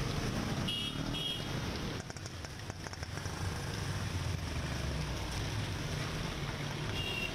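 Cars and motorbikes driving through floodwater: engines running under a steady wash of splashing water. Two short high chirps come about a second in.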